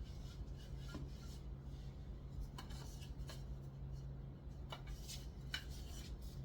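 Scattered short scraping and rubbing strokes of hand work on wood, about eight in all, over a steady low hum.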